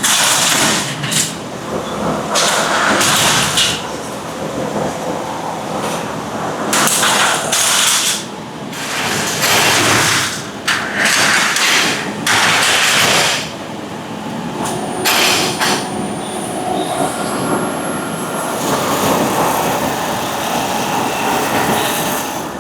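Factory machinery running, with repeated loud noisy bursts a second or so long over a steady mechanical din. The bursts are heaviest in the first half; the din evens out later on.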